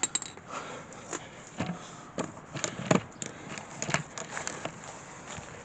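Scattered light clicks and knocks of tools and parts being handled, a dozen or so spread irregularly, the sharpest about three seconds in.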